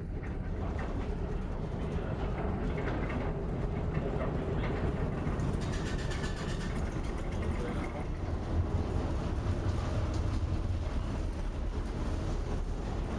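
Steady low rumble of wind and heavy sea around a ship, with a stretch of crackling spray-like noise around the middle.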